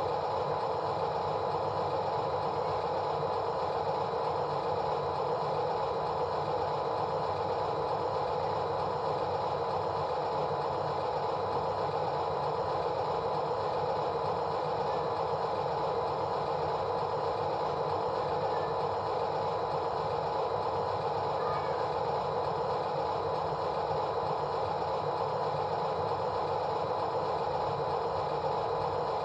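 A machine running steadily, an even hum that holds the same pitch and level throughout.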